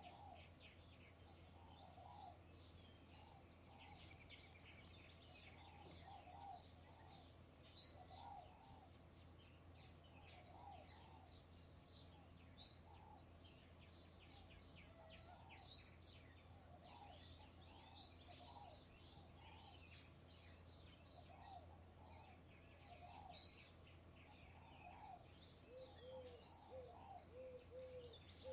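Faint early-morning field ambience: many small birds chirping and twittering, with a lower call repeated every second or two. Near the end, a quick run of low, evenly spaced notes joins in over a steady low hum.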